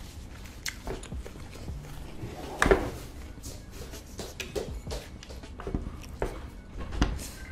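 Eating sounds at a table: scattered small clicks, taps and chewing noises from eating and handling food, with a single louder one about two and a half seconds in.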